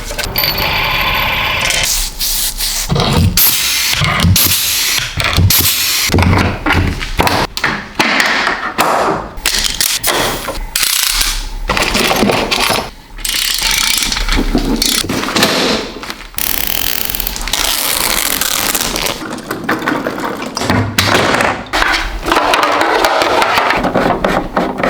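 Workshop sounds of paramotor parts being made, cut together in quick succession: scraping, hand-tool and power-tool noise, changing every second or two.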